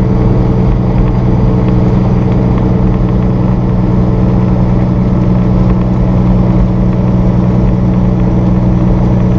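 Peterbilt 379 tractor cruising at highway speed, heard inside the cab: a steady, unchanging engine drone with road noise.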